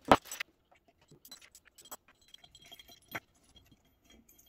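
A cordless impact driver set down on a wooden workbench with a sharp knock at the start, then scattered light metallic clinks and clicks as bolts and a flywheel puller are handled and fitted onto the engine's flywheel.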